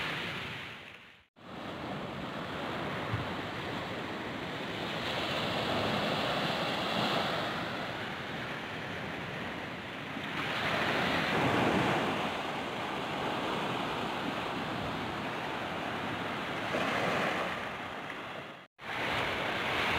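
Small waves breaking and washing up a sandy beach, the surf swelling and fading every few seconds. The sound cuts out abruptly twice, about a second in and near the end.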